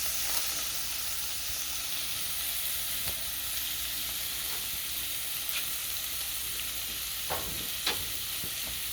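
Onion sizzling as it fries in a pan, a steady hiss, with a few light knocks of a utensil against the pan, two of them near the end.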